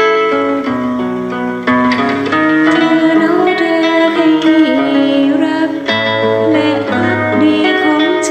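Fingerstyle acoustic guitar playing a song melody with plucked notes and bass, with a singing voice coming in over it about two and a half seconds in.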